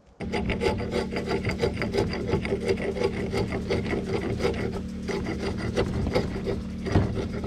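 Hatchet blade shaving and scraping a wooden stick while it is carved into a fish beater: a quick, continuous run of rasping strokes of steel on wood.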